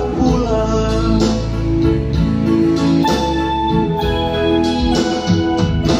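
Yamaha electronic keyboard playing an instrumental interlude of held chords over a bass line, with no singing.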